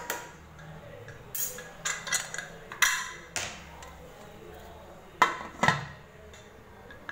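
Metal ladle stirring and knocking against a metal pressure cooker with watery rice inside, a run of clinks through the first three seconds, then two louder clanks a little after five seconds as the Prestige pressure cooker's lid is set on and closed.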